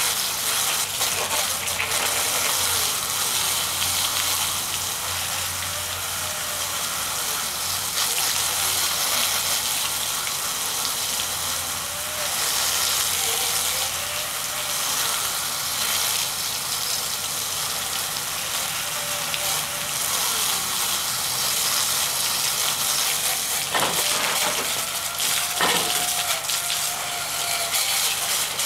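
Water jets spraying onto and splashing off a conformal-coated 120 mm computer fan in an IP55 water-jet test: a steady hiss of spray. Two sharp knocks come near the end.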